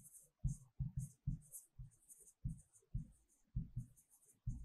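Handwriting: a series of short scratchy strokes, about two a second, of a pen or marker moving on a writing surface.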